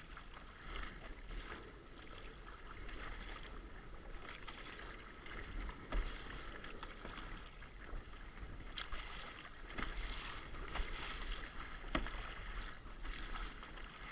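Water splashing and lapping against a plastic sit-on-top kayak as it is paddled through choppy sea, with a few sharp splashes or knocks. A low wind rumble runs on the microphone.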